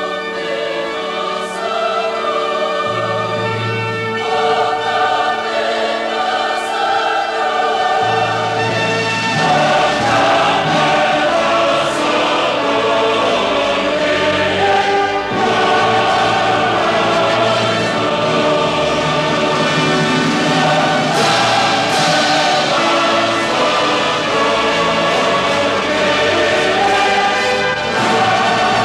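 Choir singing with instrumental accompaniment, sustained chord-like lines over a bass part.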